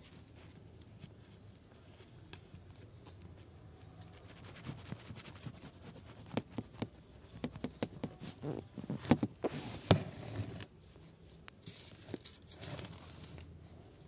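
Kittens' paws and claws scratching and pattering on a hard floor: scattered light ticks and scrapes that grow busier about halfway through, with a cluster of louder clicks near the ten-second mark.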